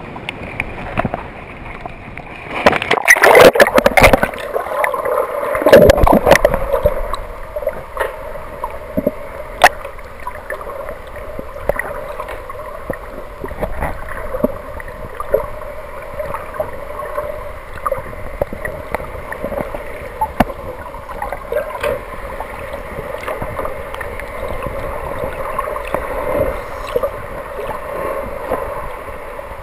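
Water splashing hard twice in the first few seconds as the snorkeller and camera go into the sea, then muffled underwater water noise with bubbling and scattered small clicks.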